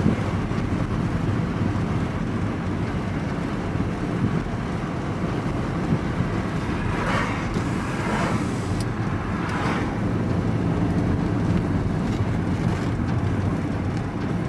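Steady engine drone and road noise heard from inside a vehicle's cab while driving. Oncoming vehicles rush past about seven, eight and nearly ten seconds in.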